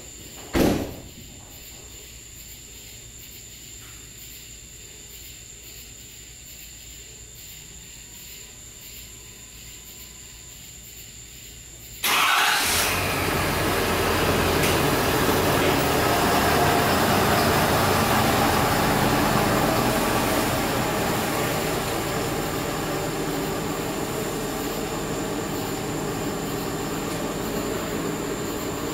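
Ford F-350 Super Duty pickup's engine starting suddenly about twelve seconds in, then running steadily and slowly fading as the truck pulls away. Before the start, only a faint steady background with a high, thin insect trill.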